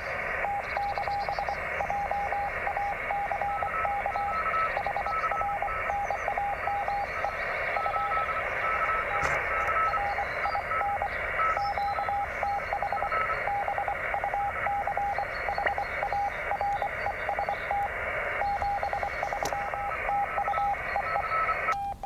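Morse code (CW) received through an HF transceiver's speaker: a steady pitched tone keyed on and off in dots and dashes over a constant hiss of band noise, with a second, fainter Morse signal at a higher pitch keying underneath. The stronger signal is a Romanian station sending its thanks, name, QTH Bucharest and 73.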